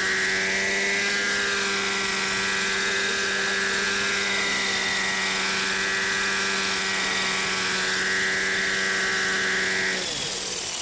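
RJX Extreme 50 RC helicopter's .50-size nitro glow engine and rotors running at steady speed while the new engine is broken in. It makes a steady drone with a higher whine that wavers slowly up and down. The note changes abruptly near the end.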